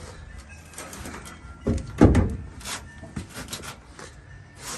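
A single heavy thump about two seconds in, among lighter knocks and clicks.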